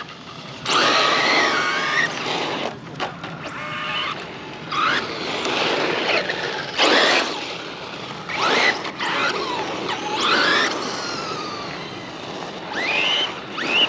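Traxxas Rustler radio-controlled truck driven in repeated throttle bursts. Its electric motor whines up and back down in pitch with each burst, over the hiss of tyres spinning on loose ground.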